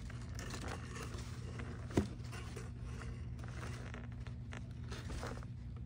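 Kraft packing paper crinkling and rustling irregularly as a bobcat shifts around inside the cardboard box beneath it, with one sharp click about two seconds in, over a steady low hum.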